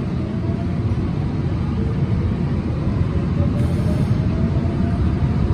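Seoul Subway Line 4 electric train pulling out of a station and picking up speed, heard from inside the carriage: a steady low rumble that slowly grows louder, with a faint whine rising in pitch.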